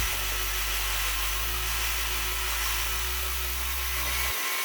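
A power cutting blade running through material, a steady hissing grind, over a low bass line that changes note twice and cuts out just before the end.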